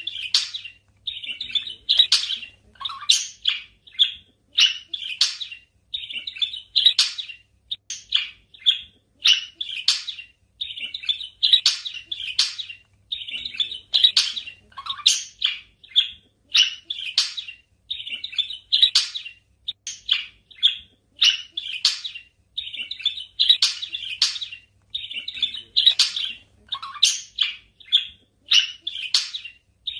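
Budgerigars chirping in quick runs of short, high tweets. A run comes roughly every two seconds.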